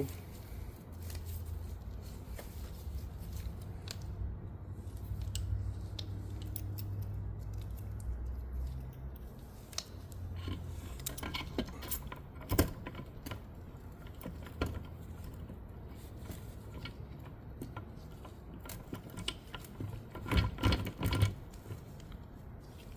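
Metal transmission parts (gears, synchros and bearings) clicking and clinking against each other as they are handled on the shaft, with scattered light clicks and louder clusters of clinks about halfway through and again near the end.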